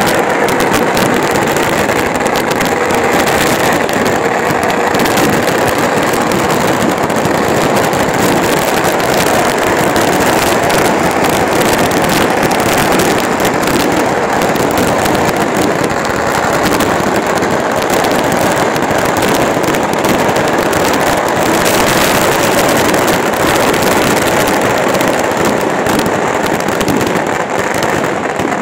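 Fireworks and firecrackers crackling densely and without a break, over the noise of a large stadium crowd.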